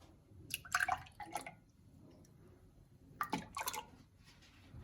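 Thick orange juice being poured into glasses, splashing and dripping in two short spells, about a second in and again just past three seconds.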